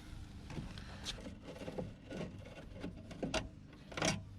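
Hands working on a car's removed door panel and its light wiring: irregular clicks, light knocks and rubbing, with sharper clicks about three and a half seconds in and again near the end.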